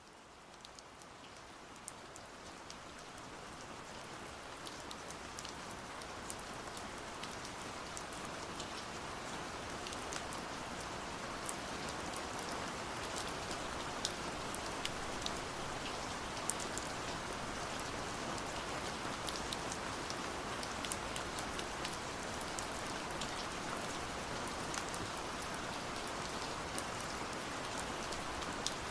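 Steady rain falling, fading in over the first several seconds and then holding even, with many individual drops ticking sharply on a hard surface.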